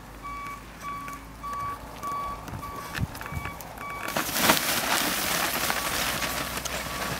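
An electronic beeper sounds steady short beeps at one pitch, about two a second. About four seconds in, a loud rustling noise starts and mostly covers it.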